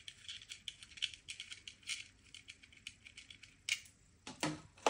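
Faint, rapid little plastic clicks and rattles of the Zoom F2-BT recorder and its batteries being handled, with a few louder clicks near the end.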